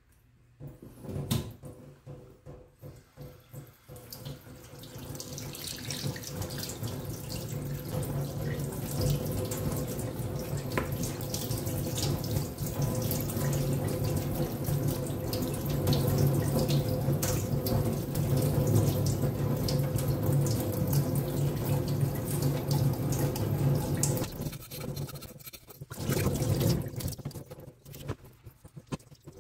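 Tap water running into a stainless-steel sink, building up a few seconds in and breaking off twice near the end. Scattered small clicks and knocks come from handling fish and tools on a plastic cutting board.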